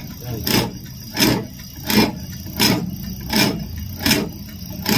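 Reconditioned solenoid diesel injector on a test bench, fired by an electric pulse tester: a sharp hiss of spray about every three-quarters of a second, seven times, over a steady low hum.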